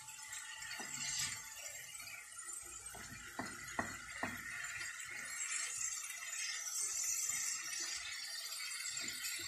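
Chicken strips, onions and peppers sizzling in a nonstick frying pan as a silicone spatula stirs and scrapes them. There are a few sharp taps of the spatula against the pan about three to four seconds in.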